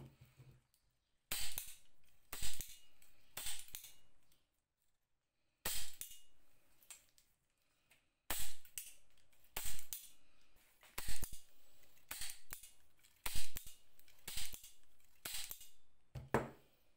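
Restored AXA glazing point driver being worked by hand, giving sharp metallic snaps roughly once a second as its spring-loaded driver fires, with lighter clicks and rattles between as the handle is squeezed and let back. The snaps come in three runs, with two short pauses.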